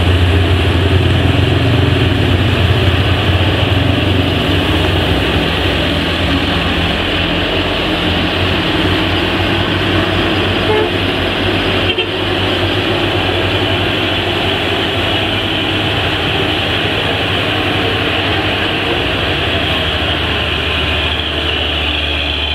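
Diesel engine of a Mitsubishi Fuso fuel tanker truck running steadily as it rounds a bend, a continuous low drone mixed with other passing traffic, a little louder in the first few seconds.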